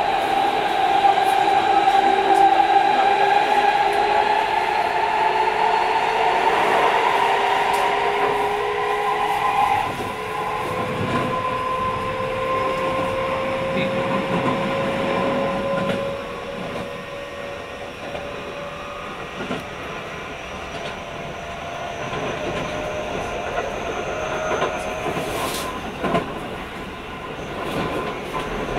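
Keio 5000 series electric train heard from inside a passenger car while running. The traction motor and inverter whine climbs slowly in pitch as the train gathers speed, with occasional wheel clicks over rail joints. About ten seconds in, the loudest tone stops and the sound quietens, and it drops again a few seconds later.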